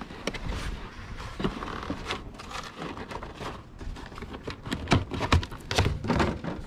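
A large RC monster truck's tyres and plastic chassis rubbing and knocking against its cardboard box as it is worked out of the packaging. The cardboard scrapes and rustles, with a run of clicks and knocks that is loudest about five seconds in.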